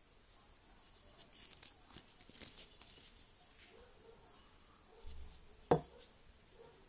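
Handling noise: faint rustles and light ticks as a slingshot frame is turned in the hand, with one sharp click near the end.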